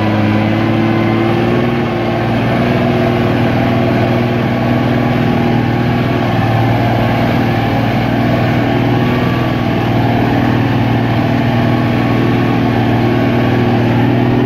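Mercedes-Benz Unimog truck's engine running steadily while driving across a wet meadow, heard from inside the cab as a constant drone with a slight waver in pitch.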